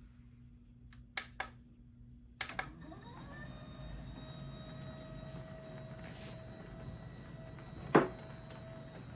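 A couple of clicks, then the electric standing desk's lift motor starts with a short rising whine and runs with a steady hum; a single sharp knock sounds near the end.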